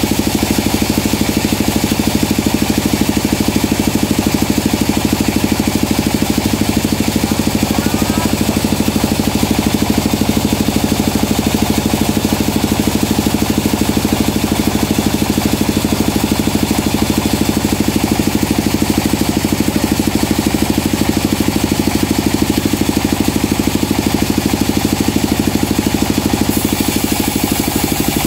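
Band sawmill running steadily, its motor giving a constant, unbroken drone.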